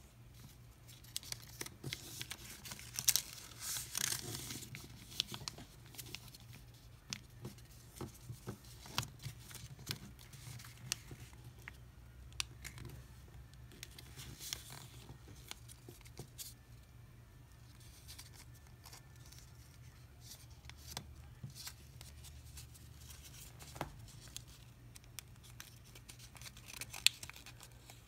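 A small sheet of paper being folded and creased by hand, with irregular crinkles, rustles and small sharp taps. It is busiest a few seconds in and has one sharper snap near the end.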